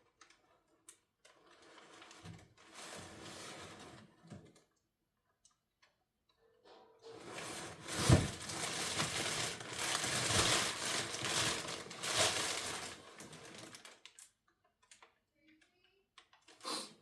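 Paper rustling and crinkling as a wrapped gift is unwrapped from a box, in two spells of handling, with a single thump about eight seconds in.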